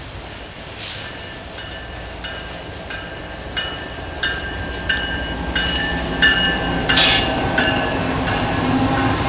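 Train approaching: a low engine rumble grows louder while a bell-like ding repeats about one and a half times a second, with a sharp click near the end.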